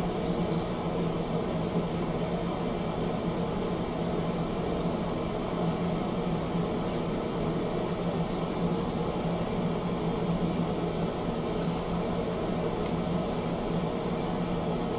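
Propane torch burning steadily into a small kiln: a constant hiss with a steady low hum.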